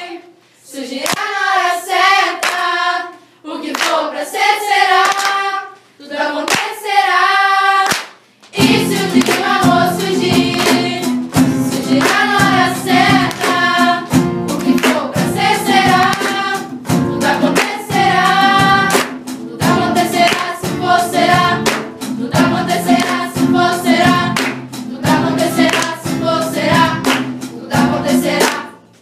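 Girls' group singing together in Portuguese, at first in short phrases with hand claps, then joined about nine seconds in by two strummed acoustic guitars under the voices. The song ends just before the close.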